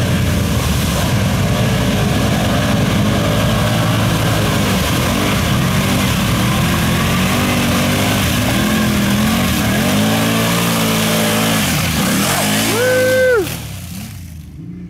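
Can-Am Outlander ATV engine revving up and down hard as the quad churns through a deep mud hole, with mud and water splashing. A last high rev near the end falls away, and the sound drops off as the quad moves on.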